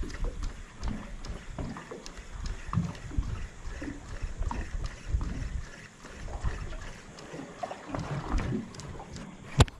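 Water splashing and sloshing with irregular low knocks and scattered clicks, and one sharp click near the end.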